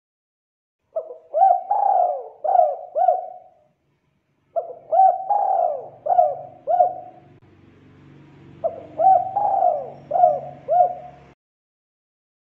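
Spotted dove singing its cooing song: three phrases, each a quick run of about five coos that rise and fall in pitch, a few seconds apart. A faint low hum sits under the later phrases, and the sound cuts off suddenly near the end.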